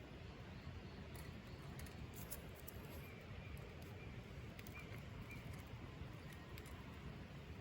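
Faint outdoor ambience: a steady low background rumble, with a few faint short bird calls about three to five seconds in and a few light clicks.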